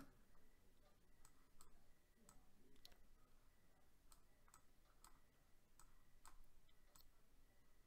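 Faint, irregular clicking of a computer mouse button, about two clicks a second, as lines are drawn with the mouse.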